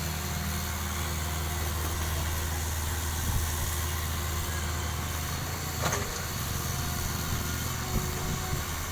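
Excavator engine running steadily with a low hum. A short sharp click sounds about six seconds in.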